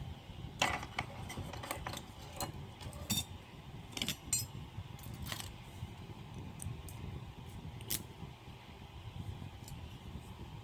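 Small metal clicks and taps of lock parts being handled as a Wilka 6-pin half-euro cylinder is taken apart by hand: a run of sharp clicks over the first half, then a single click later.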